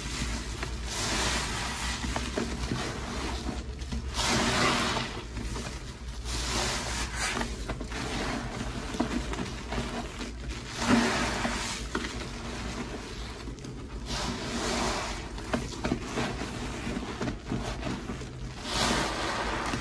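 Soap-loaded sponges squeezed by hand in a bucket of thick dish-soap foam paste: wet squishing and fizzing foam that swells with each squeeze, about every two to three seconds.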